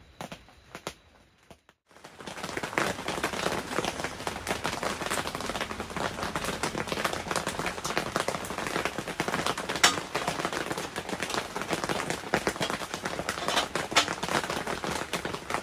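Rain on a clear tent: a few single drops ticking at first, then about two seconds in a loud, dense, rapid patter of drops with occasional sharper cracks. The hits are sharp enough to be mistaken for BB-gun pellets.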